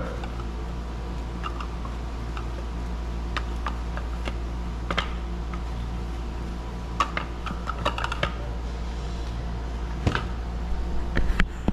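Wooden spoon tapping and scraping inside a plastic container, knocking green seasoning out onto raw chicken in a large aluminium pot: scattered light clicks and knocks, in small clusters, over a steady low hum.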